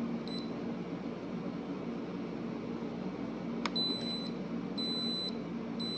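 Instant Pot control panel beeping: one short beep near the start, a click about three and a half seconds in, then three longer beeps a second apart, the signal that the cooker has taken the setting and begun its pressure-cooking cycle. A low hum runs underneath.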